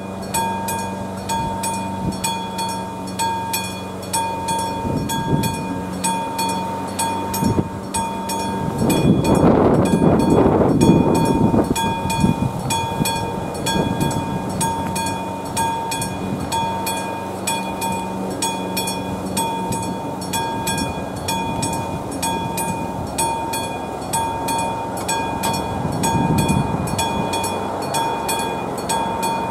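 AŽD 71 level-crossing warning bell ringing steadily, about two strikes a second, while the crossing warning is active. A louder rumble passes about nine to twelve seconds in, and a smaller one near the end.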